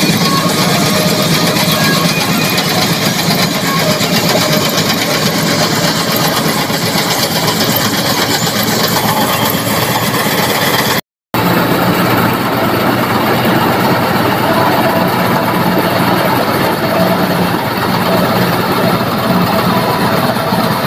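A John Deere 5075E-based combine harvester running steadily under load while harvesting paddy: diesel engine together with the rattle of the cutter and threshing drum. The sound drops out for a split second about eleven seconds in.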